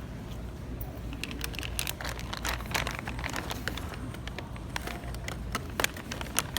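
Handling noise: rustling and crinkling with a quick run of sharp clicks, starting about a second in, over a steady low hum.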